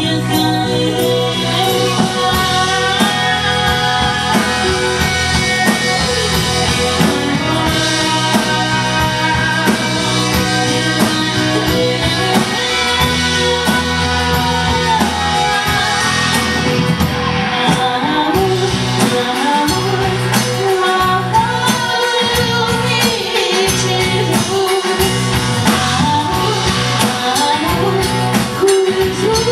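Live band playing a downtempo song: a woman sings the lead over electric bass guitar and drums.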